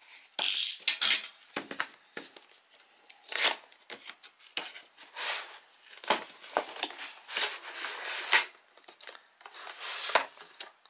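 Cardboard packaging being handled and opened: irregular rubbing and scraping as the box's inner tray slides out of its cardboard sleeve, the loudest scrape about half a second in.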